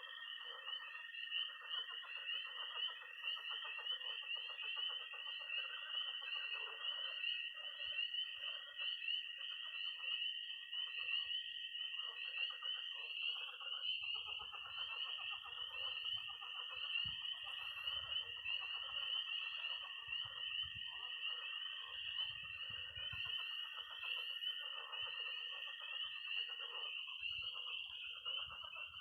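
Night chorus of frogs and toads: a dense high peeping from tree frogs, a long high toad trill that breaks off about halfway and starts again a second or so later, and a lower mass of croaking pond frogs underneath. Faint low thumps come and go in the second half.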